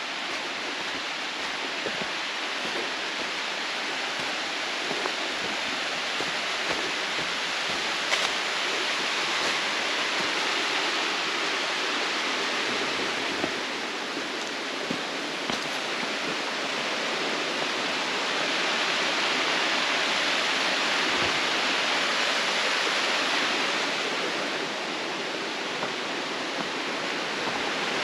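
Steady rush of a mountain creek and sliding cascade pouring over rocks, swelling louder past the middle and easing again near the end.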